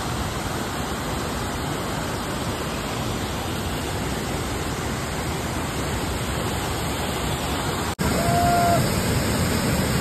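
Steady rush of falling water from a large waterfall and its rocky stream. It breaks off for an instant about eight seconds in and comes back a little louder.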